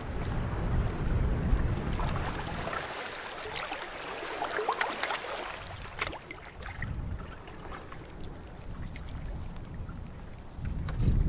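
Wind rumbling on the microphone, with water splashing and lapping against a canoe hull as it is paddled through choppy water; the splashing is busiest a few seconds in.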